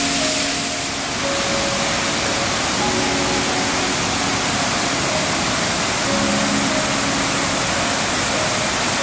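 River Clyde rapids rushing over rocks, a steady loud hiss of white water, with soft background music of held notes coming and going over it.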